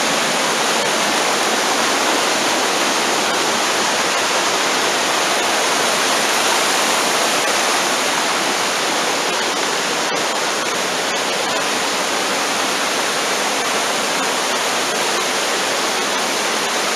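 Creek water rushing, a steady, unbroken wash of noise.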